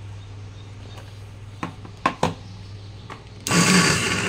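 A few handling clicks as the battery pack is connected, then about three and a half seconds in the cordless grass trimmer's electric motor runs briefly for about a second, loud and noisy. The motor has bad bearings.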